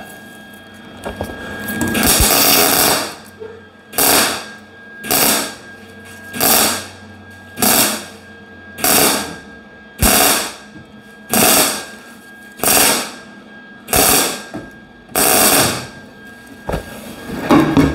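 MIG welder arc on sheet steel, tack-welding a patch panel to an inner fender. One longer weld burst comes about two seconds in, then about ten short crackling bursts follow, each a little over a second apart.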